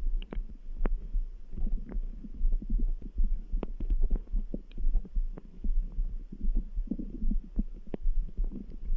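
Stomach and intestinal gurgling picked up against the belly, with a steady heartbeat thumping underneath. Short gurgles come and go among scattered small pops and clicks.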